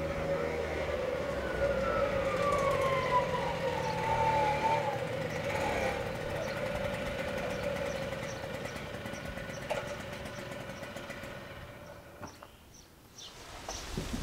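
A small motor vehicle engine runs with a steady pitched hum. A higher whine falls in pitch over a few seconds near the start, and the sound fades away near the end.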